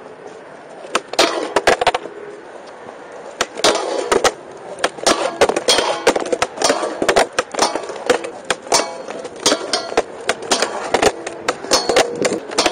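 Skateboard rolling on concrete and a truck grinding a round metal rail during smith grind attempts, with repeated sharp clacks of the board and trucks hitting the rail and ground.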